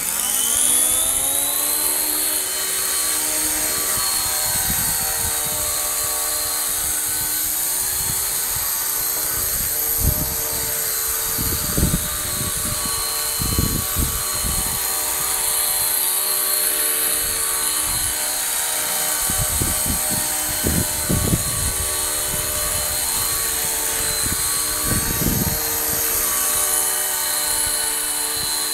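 Motor and rotor of a model Apache helicopter spinning up: a whine that climbs in pitch for the first couple of seconds, then holds steady. A few short low bumps come through it.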